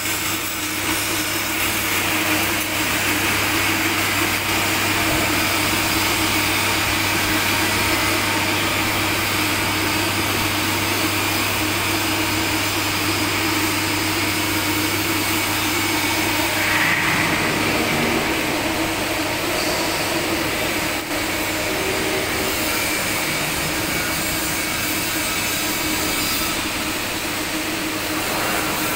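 Steady machine hum with an even hiss over it.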